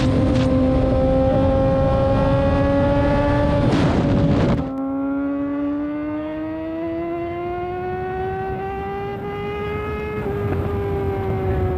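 A motor engine running with a steady pitch that slowly rises, then dips near the end. For the first four and a half seconds it is heard under heavy wind noise on the microphone. Then the wind noise and the high end drop away abruptly, as a wind-noise filter takes effect.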